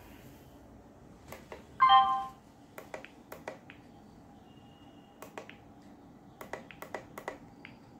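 Buttons on a Biomax BM70W attendance terminal clicking in a quick irregular series as its menus are stepped through. A short tone sounds about two seconds in.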